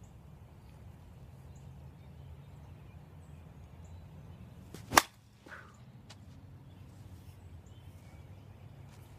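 Avarice G2 slowpitch softball bat striking a softball off a batting tee: one sharp, loud crack about five seconds in, with a short ringing tail.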